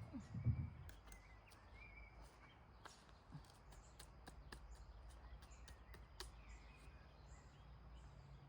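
Quiet forest ambience: a few faint bird chirps and scattered sharp clicks over a low rumble, with two dull thumps in the first second.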